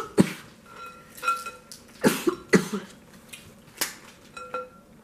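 Boiled crab-leg shells cracked and snapped apart by hand, a few separate sharp cracks.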